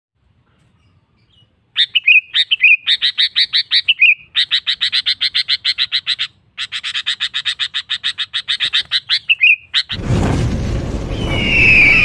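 Sooty-headed bulbul (kutilang) singing long fast series of sharp repeated notes, about six a second, with a short break near six seconds. About ten seconds in it gives way to a low rumbling intro sound effect with a whooshing tone.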